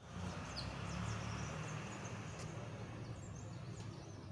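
Outdoor ambience: small birds chirping in short bursts over a steady low hum.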